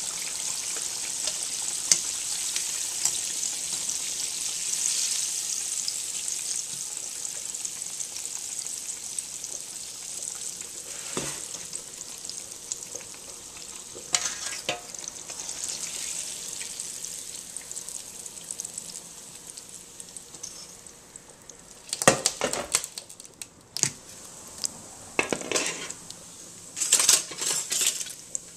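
Pork chops frying in hot oil in a skillet: a steady high sizzle that slowly fades. From about 22 seconds in, bursts of scraping and clatter as a utensil stirs crisp bacon in a stainless steel pan.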